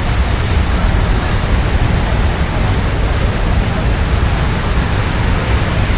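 Steady loud rushing of water churning in a ship's wake, with wind buffeting the microphone and a deep rumble underneath.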